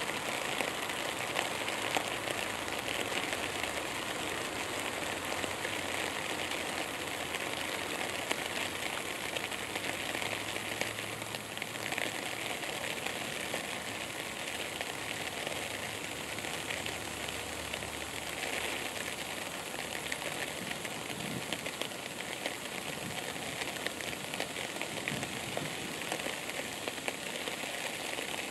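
Steady outdoor background hiss with a constant fine crackling patter.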